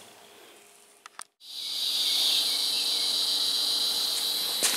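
Crickets chirping in a steady, dense, high-pitched chorus that cuts in about a second and a half in, after a near-quiet start with a couple of small clicks.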